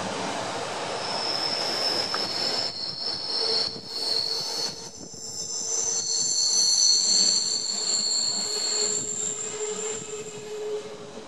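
Steel wheels of a Stadler Allegra narrow-gauge motor coach and its train squealing through a tight curve, over the rumble of the train rolling. Several high-pitched squeals set in about a second in and overlap and shift, with a lower whine joining partway through. The squeal comes from the wheels rubbing against the rails in the narrow curve.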